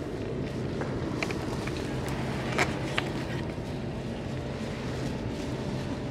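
Boat engine running steadily with a low, even hum, with a few brief knocks and clicks on board.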